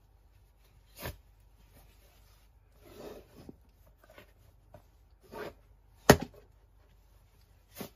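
Cotton shoe dust bags handled with gloved hands: short fabric rustles as the drawstrings are loosened and a sneaker is slid out, broken by a few sharp knocks, the loudest about six seconds in.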